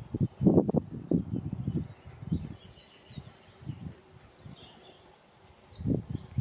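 A meadow insect's steady, high-pitched trill runs unbroken, with irregular low rustling and buffeting that is heavy in the first two seconds, dies away, and comes back near the end.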